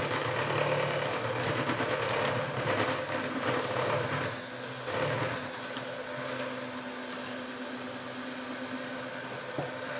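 Electric hand mixer running steadily at low speed, its beaters whisking egg-and-sugar batter in a stainless steel bowl. It is a little quieter after about four and a half seconds.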